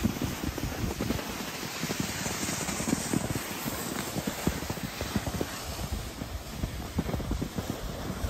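Hiss and scrape of a snowboard and skis sliding over groomed snow on a downhill run, brightest a couple of seconds in. Wind buffets the microphone in low, uneven thumps throughout.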